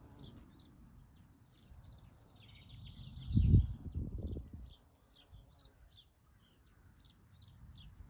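Small birds chirping, with short high notes scattered throughout and a longer warbling phrase about two to four seconds in. A brief low rumble about three and a half seconds in is the loudest sound.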